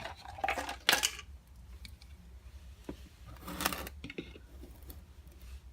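Containers and a cup being handled: short rustles and a few light knocks and clicks, over a steady low hum.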